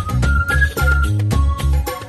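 Background music with a steady beat, a pulsing bass line and a high melody.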